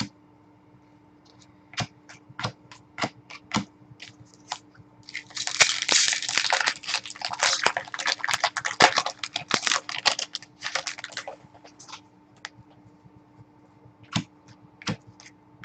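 Trading cards being handled and flicked through: a run of sharp card clicks, then several seconds of dense rustling and crinkling as packs are torn open and cards shuffled, then more scattered clicks near the end.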